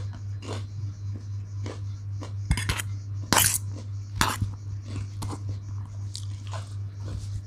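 Close-miked chewing of a mouthful of green chili and fried noodles, with regular soft crunches. Between two and four seconds in, a few louder, sharper scrapes and clinks as the steel fork works in the stainless steel bowl. A steady low hum runs underneath.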